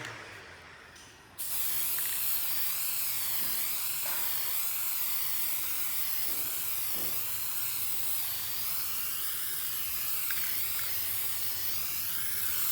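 A steady hiss starts suddenly about a second and a half in and holds evenly, with a slowly wavering high edge, then cuts off at the end.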